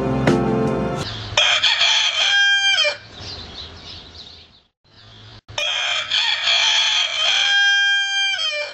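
Rooster crowing twice, two full cock-a-doodle-doos a few seconds apart, each ending in a long held note that drops away at the end. Music fades out just before the first crow.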